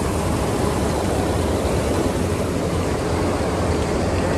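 Steady, loud running of farm diesel machinery during harvest: a constant low engine drone under an even rushing noise, with no change in speed.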